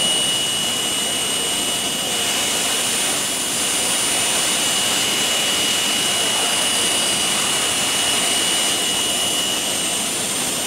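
CNC machine spindle running at high speed with a steady high-pitched whine over an even hiss, its cutter milling through a metal profile.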